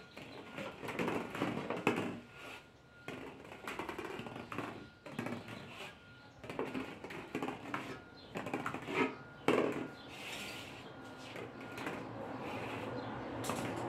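Irregular clicks and knocks of small plastic balls being handled, dropped and rolled in a ball-run game, sometimes in quick flurries.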